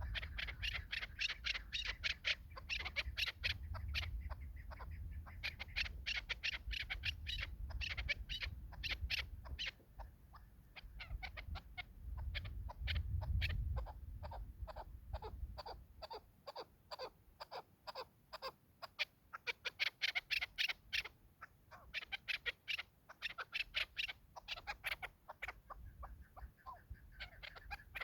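Chukar partridges calling: long runs of rapid clucking notes, repeated throughout, with a low rumble underneath in the first half.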